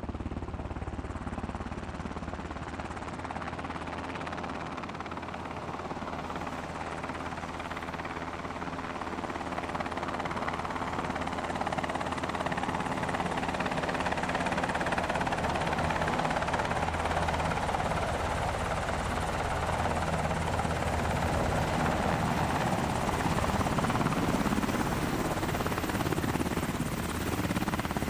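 UH-60 Black Hawk helicopter coming in to land, its main rotor and twin turbine engines growing steadily louder as it descends to a low hover over the field.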